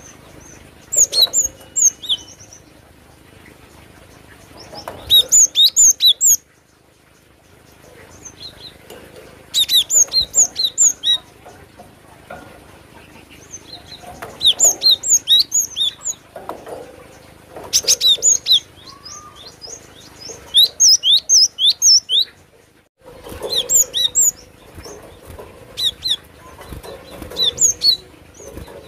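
Cinereous tit (gelatik batu) singing: repeated phrases of quick, high, sharp notes, each phrase lasting a second or two, with short pauses between them.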